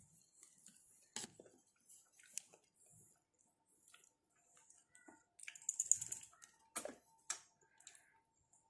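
Faint sounds of eating durian by hand: soft sticky lip smacks and chewing of the creamy flesh, heard as scattered small clicks, with a short hissing rustle about six seconds in.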